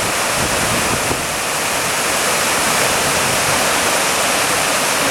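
Rushing snow-melt river in spate, a loud steady roar of fast white water pouring over rocks.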